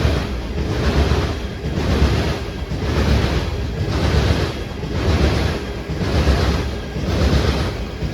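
A train rolling past close by: a rushing noise that swells and fades about three times every two seconds as the cars go by, with wind buffeting the microphone.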